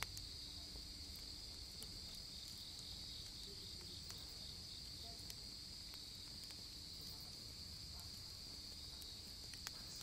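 Steady high-pitched trilling chorus of night insects, crickets, with a few faint crackles from a wood campfire.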